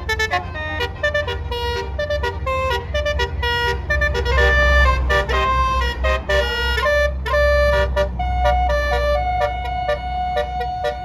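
A bus's 'basuri' musical air horn playing a tune of short, changing notes, over the low rumble of the bus engine.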